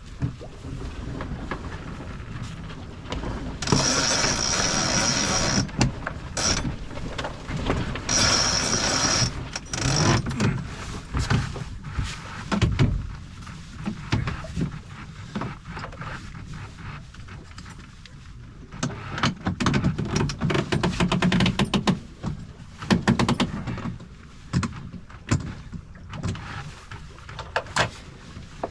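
Sailboat sheet winch ratcheting as the headsail sheet is wound in after a tack: rapid clicking throughout, with two longer spells of cranking about four and eight seconds in.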